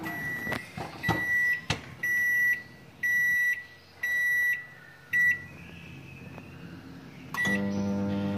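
Microwave oven beeping at the end of its cooking cycle: its running hum stops at the start, then a high beep sounds about once a second, five times. Two short button beeps follow, and near the end the oven's hum starts again as it is set running once more.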